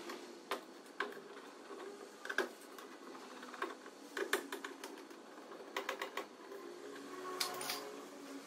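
Irregular clicks and taps of a hand screwdriver working the screws under a car's plastic rear bumper, some coming in quick little clusters.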